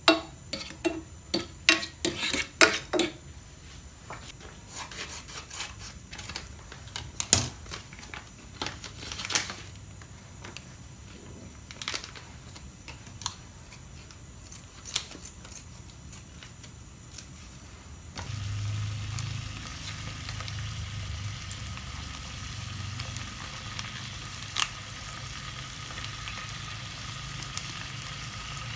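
Quick run of kitchen knocks and utensil taps, then scattered clicks. About 18 seconds in, a steady sizzle starts as food hits a hot pan, with occasional stirring clicks over it.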